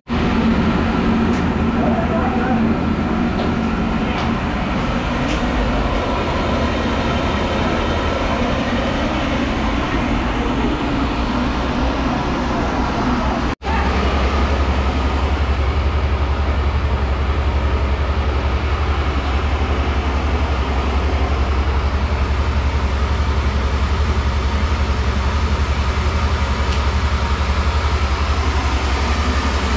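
Belt-driven flour mill running while grinding wheat: a loud, steady mechanical rumble and hum. After a cut about halfway through, a deeper hum is stronger.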